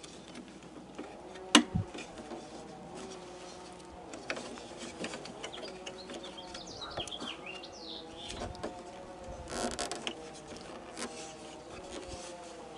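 Hand work on a pickup truck's exterior door handle: one sharp click about a second and a half in and a brief rustle near ten seconds, with birds chirping faintly in the background.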